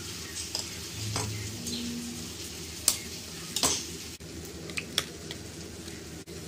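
An egg being cracked open by hand over a ceramic bowl: a few sharp cracks and clicks of the shell, the loudest about three and a half seconds in. Under them runs a steady sizzling hiss from frying.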